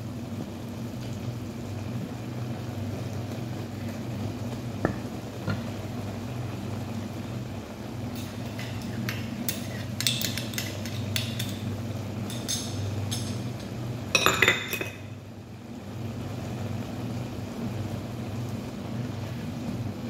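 Cooking utensils clinking and knocking against a wok while ground chicken is stir-fried, with a run of taps from about eight seconds in and a louder clatter about fourteen seconds in, over a steady low hum.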